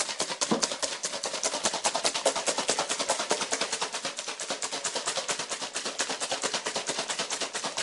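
A small lidded plastic tub holding cooked egg fry food being shaken hard, giving a rapid, even rattle of knocks as the contents and lid bang back and forth.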